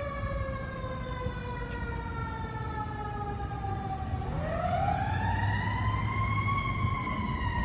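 Fire engine siren wailing: one long falling tone that drops slowly, then about four seconds in it sweeps back up and holds high near the end.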